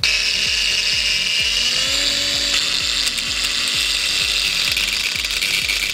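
18V cordless angle grinder starting suddenly and running at speed, its disc cutting. It makes a loud, steady high whine, and its pitch rises briefly about two seconds in.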